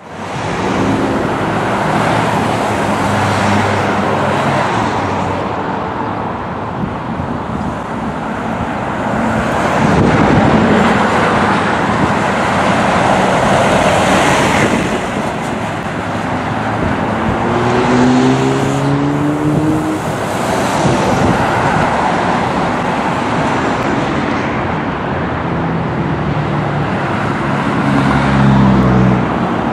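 Fire trucks' diesel engines running as they drive past on a busy road, with steady traffic noise; partway through, an engine's pitch rises as it accelerates.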